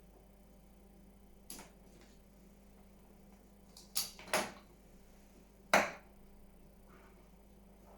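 Several separate clicks and knocks of equipment and cables being handled as a bench test setup is rearranged, the loudest just before six seconds in, over a faint steady electrical hum.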